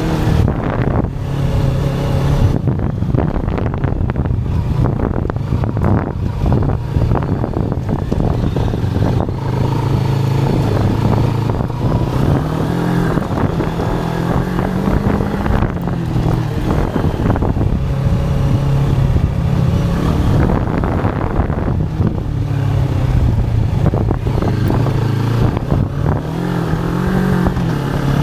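Moto Morini X-Cape's parallel-twin engine running through an FF By Fresco Dakar aftermarket exhaust, a steady low exhaust note whose pitch rises and falls a little with the throttle.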